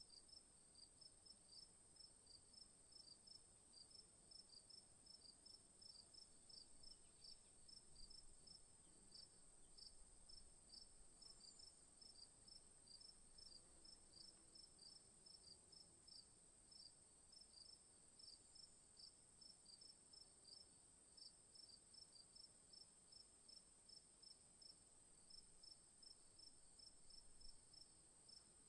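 Faint insect chirping: short high chirps repeating evenly, about two or three a second, over a steady high-pitched trill.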